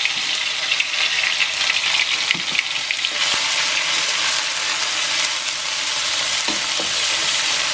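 Ground chili spice paste sizzling as it stir-fries in hot oil in a wok, with the metal spatula scraping and clicking against the pan as it is stirred, most in the first few seconds.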